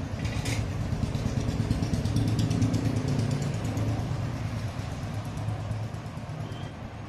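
An engine running nearby, a steady low hum that swells a little a couple of seconds in and then eases off.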